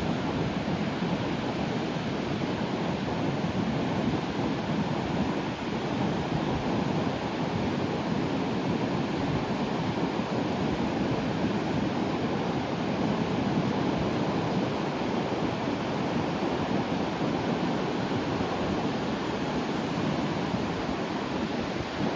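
Sea surf breaking and washing along the shore, a steady, continuous rush with no distinct single crashes, with some wind on the microphone.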